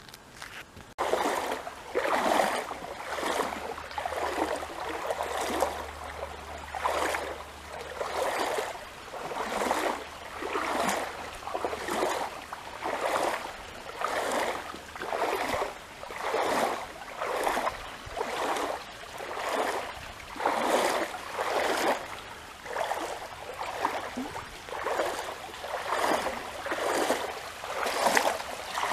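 Flowing water rising and falling in regular swells about once a second, starting abruptly about a second in.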